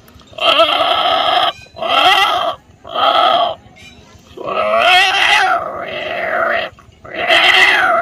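A man imitating cats with his voice: five drawn-out meows and yowls, the fourth the longest, mimicking cats fighting.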